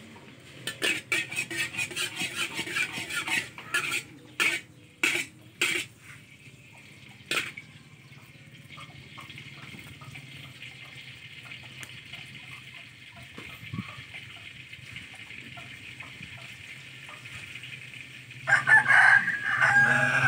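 A rooster crows once near the end, a loud pitched call that falls in pitch. Earlier comes a fast run of sharp clicks for about three seconds, then a few single sharp knocks, over a steady faint hiss.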